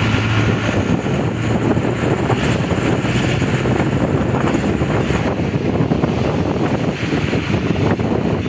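Steady running noise of a moving vehicle heard from inside: low engine hum and road noise, with wind rumbling on the microphone.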